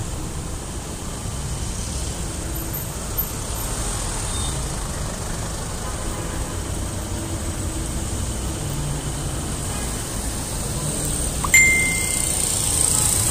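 Steady city street traffic noise, a low rumble of passing vehicles, with a single short ding near the end.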